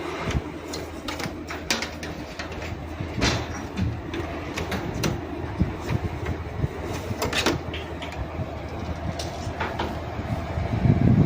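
Air conditioner running with a steady low hum and irregular knocking and rattling clicks, growing louder near the end.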